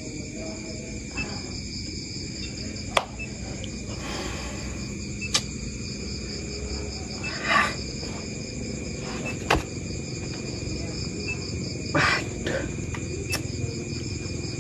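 Crickets chirping in a steady, finely pulsing chorus, broken by a few sharp clicks and two short rustling bursts.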